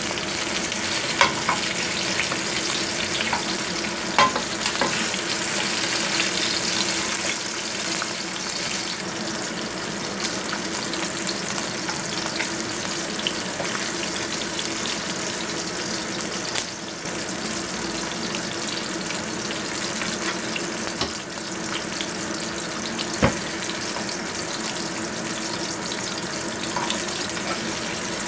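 Fish pieces sizzling as they fry in oil in a pan, with a few sharp clinks of a metal spatula against the pan as they are turned.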